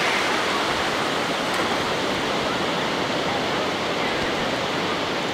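Steady wash of ocean surf running over the shallows at the shoreline.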